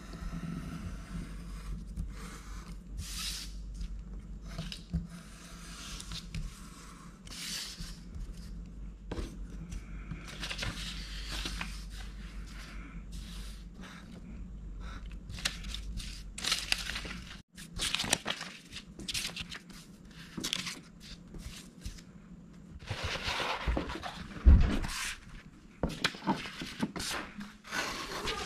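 Snap-off utility knife blade slicing through a printed paper pattern on a cutting mat: a long run of short, irregular scraping cuts, with paper rustling. One sharp thump comes near the end.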